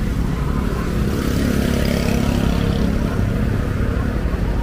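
Street traffic: a motorbike engine passing over a steady low rumble of road noise, swelling about one to three seconds in.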